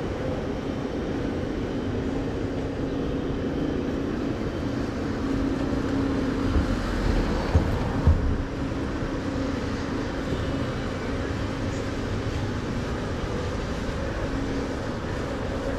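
City street traffic noise: a steady hum with a constant low droning tone, and a few short low thumps a little past the middle.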